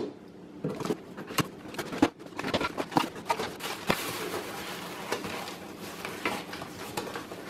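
A small cardboard box being opened by hand: flaps pulled open, then plastic-wrapped metal parts rustled and lifted out, with a few light knocks.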